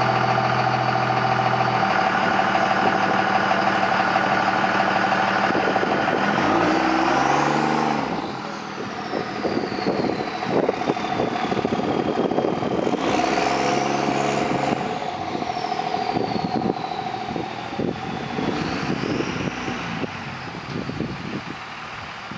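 1999 Cummins 24-valve turbodiesel pickup idling, then pulling away and revving up twice, each time with a high turbo whistle that rises and then falls away. The engine grows fainter after the first rev as the truck moves off.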